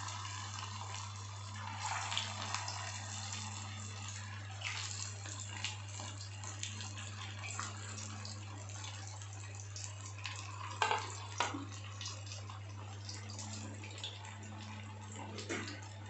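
Potato rawa cutlets deep-frying in hot oil: a steady bubbling sizzle with scattered small crackles and pops, and two sharper clicks about eleven seconds in, over a steady low hum.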